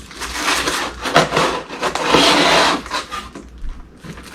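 Camping-kit packaging and parts being handled and pulled from the box: irregular rustling and scraping, loudest about two seconds in.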